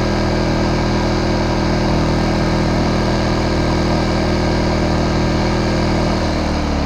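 Champion 2500-watt inverter generator's 79cc engine running steadily, with economy mode switched off. Its pitch sags slightly near the end.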